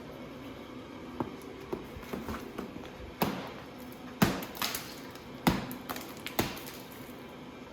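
A series of sharp, irregular knocks, six or so spread a second or more apart, over a steady low hum.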